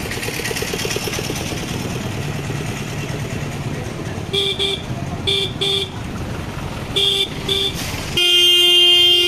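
Street traffic noise, then a vehicle horn tooting in short pairs several times and finally blaring in one long, loud blast near the end.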